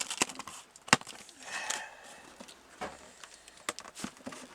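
Cardboard packaging being cut open and handled: a series of sharp clicks and knocks, with a brief scraping rasp about a second and a half in.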